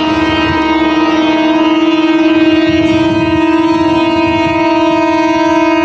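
A train's air horn blown in one long, steady, unbroken note, over the low rumble of a moving train.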